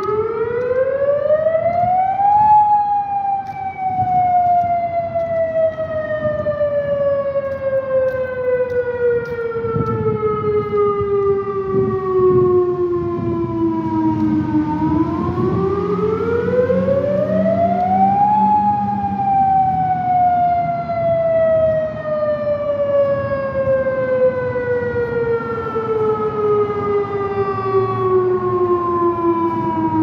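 Federal Signal Modulator outdoor warning siren sounding a loud wail in its scheduled test. The pitch climbs over about two seconds, then sinks slowly over about twelve, and does this twice. Passing street traffic rumbles underneath.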